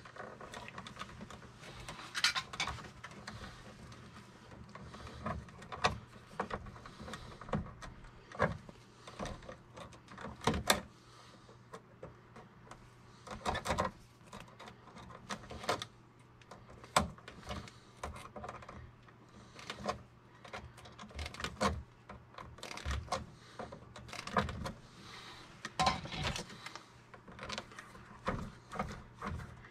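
Irregular small clicks, scrapes and rustles of solid copper 12/2 Romex wires being twisted together, by hand and with lineman's pliers. A faint steady low hum runs underneath.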